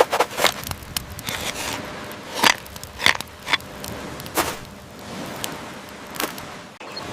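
About ten sharp clicks and knocks at irregular intervals over a steady hiss, the loudest two about two and a half and three seconds in.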